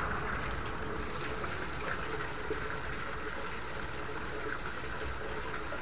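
Mineral spring water pouring steadily from a spout and splashing onto a drain grate.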